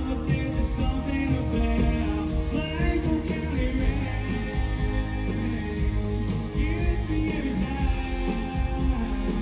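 Country band playing live through a stage PA, heard from the crowd: a male lead voice singing over electric guitars, bass and drums.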